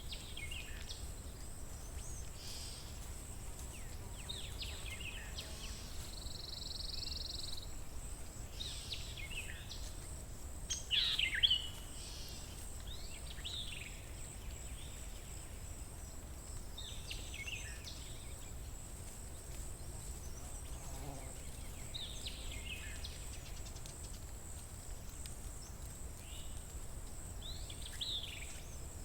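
Songbirds singing in short, sweeping phrases every few seconds, one of them a buzzy note, over a steady high-pitched hiss and a low background rumble.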